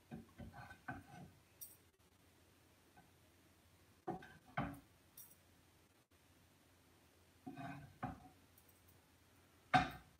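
A wooden spatula scraping and tapping in a pan of vegetable stuffing as it is scooped out, in short scattered knocks with the loudest one near the end.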